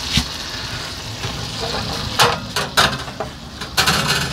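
A metal baking tray handled in a kitchen: several sharp clanks and knocks over a steady hiss.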